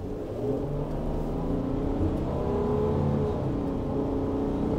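Hydrogen-fuelled 3.5-litre twin-turbo V6 of a Toyota HiAce van pulling under heavy throttle, heard from inside the cab. The smooth engine note builds about half a second in and climbs gradually as the van speeds up.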